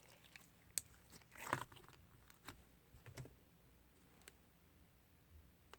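Slime being handled: faint sticky clicks and pops, with a louder squish about a second and a half in.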